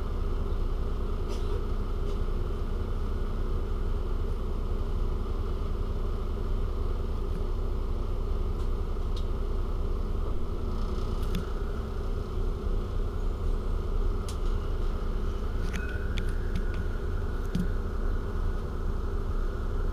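Iveco Urbanway 12 city bus standing at a stop with its engine idling: a steady low rumble with a constant hum, plus a few faint clicks in the second half.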